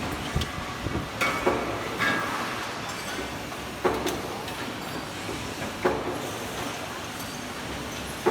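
KTK LGT-550B bench drill-and-tapping machine running, a steady mechanical noise with a few sharp metallic clinks and knocks at irregular moments.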